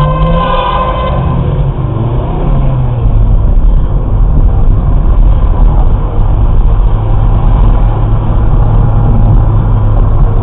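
Car engine and road noise as heard by a dashboard camera inside the cabin: a steady low rumble while the car pulls away and speeds up. A held pitched tone fades out about a second in.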